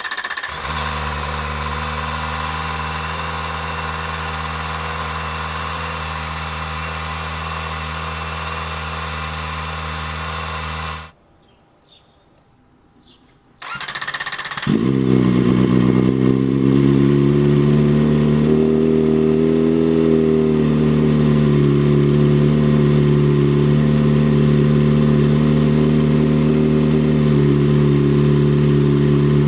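Kawasaki ZX-4RR's inline-four engine idling steadily. About eleven seconds in it cuts off. After a short quiet gap the engine idles again, markedly louder and with stronger low tones, the pitch wavering slightly.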